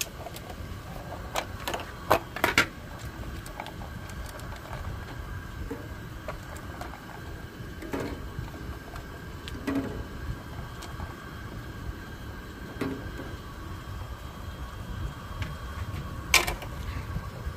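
Scattered clicks and knocks from handling a clear plastic egg carton and setting eggs into a small metal camp pot of water, over a steady low rumble.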